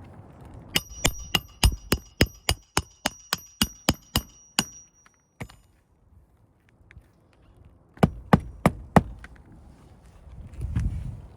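Hammer driving a nail: a quick run of about fourteen blows at roughly three a second with a metallic ring, then, after a pause of a few seconds, four more blows.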